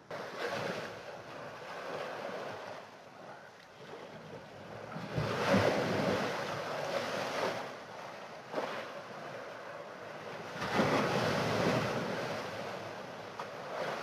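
Sea waves surging in and washing against a stone seawall, the noise of the water swelling and ebbing in three bigger surges roughly five seconds apart.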